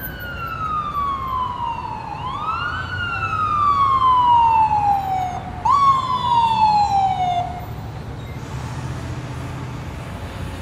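An emergency vehicle siren wailing: three sweeps, each rising quickly and then falling slowly in pitch, stopping about three quarters of the way through. A steady low hum runs underneath.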